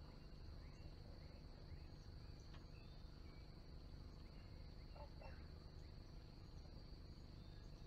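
Faint outdoor swamp ambience: a steady high-pitched insect drone, with a few scattered faint bird chirps over a low background rumble.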